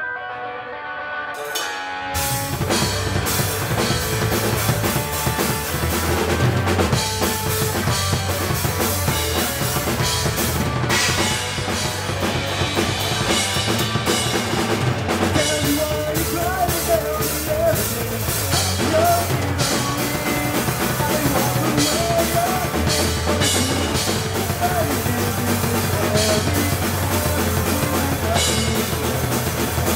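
Live rock band playing: drum kit, electric guitar and bass guitar. A quieter opening gives way to the full band coming in about two seconds in, with a wavering melody line on top from about halfway through.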